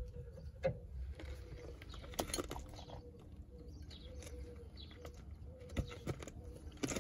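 Scattered metallic clicks and knocks from hand tools and suspension parts being handled, over a low steady rumble. Faint short cooing notes repeat in the background.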